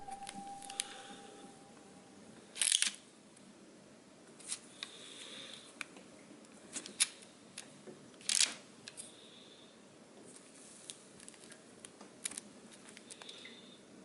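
A plastic cookie cutter pressed repeatedly through a thin sheet of sponge cake on parchment paper over a baking tray: scattered soft taps and paper crinkles, with two louder, crisp rustles about three and eight seconds in.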